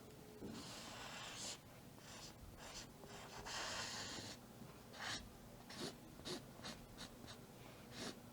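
Strokes of a drawing or painting tool scraping across a canvas: two longer strokes in the first half, then a run of short quick strokes.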